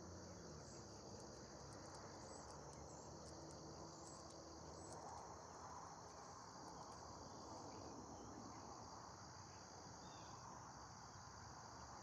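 Faint, steady high-pitched chirring of insects in the background.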